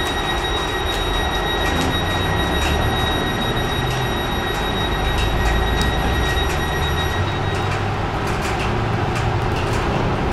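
Class 323 electric multiple unit standing at the platform with its equipment running: a steady low rumble with a high whine that cuts off about seven seconds in. Scattered ticks of rain sound throughout.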